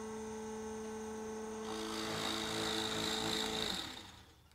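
NOVA Voyager DVR drill press running with a steady motor hum. About one and a half seconds in, its twist bit starts boring into a wooden board with a rasping cutting sound. About three and a half seconds in, the motor winds down and stops on its own as the electronic depth stop reaches the set 7/16-inch depth.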